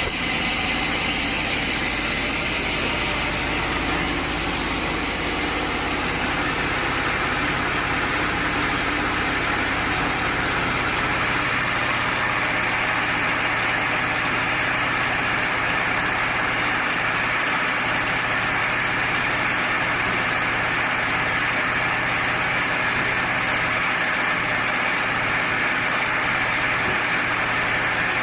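Woodworking machinery running steadily, a continuous mechanical noise whose deep rumble drops away and whose higher hiss grows stronger about eleven seconds in.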